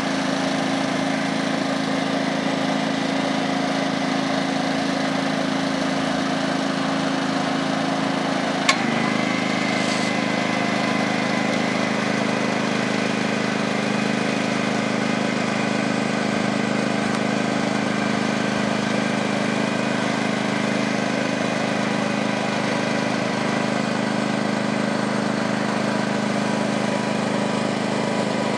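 Small engine of a bungee retrieval winch running steadily. About nine seconds in there is a sharp click, after which the engine note shifts lower and a thin high whine joins in, as the winch takes up the load and hauls the jumper back up to the bridge.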